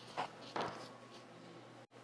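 Handling noise from a Boya BY-M1 lavalier microphone and its cable being moved about: two brief rustling scrapes in the first second, then faint steady hiss.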